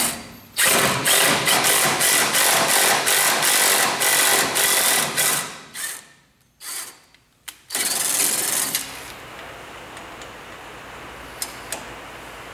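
A hand-held power drill drives a thread tap into a hole drilled through a broken bolt. It runs for about five seconds, then gives several short bursts and one last longer burst before stopping. A steady low hiss is left behind.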